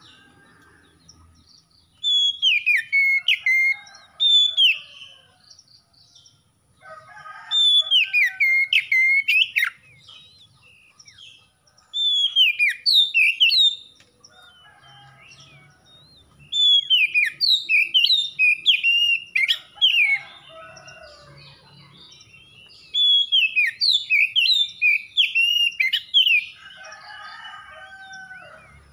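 Oriental magpie-robin singing in about five bursts of rapid, sweet whistled notes a few seconds apart, with softer, lower chattering between the bursts.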